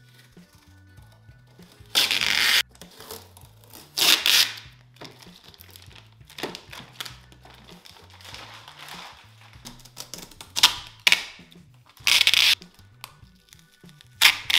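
Packing tape being ripped off a 3D printer's panels in several long rips, with plastic wrap crinkling between them, over quiet background music with a low bass line.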